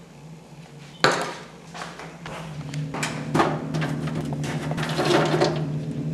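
Ice and a cup being handled at a kitchen sink: a sharp knock about a second in, then clinking and clattering over a steady hum that starts about two and a half seconds in.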